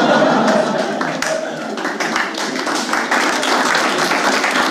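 Audience laughing and clapping in response to a joke. The laughter is strongest in the first second or two, then steady applause carries on.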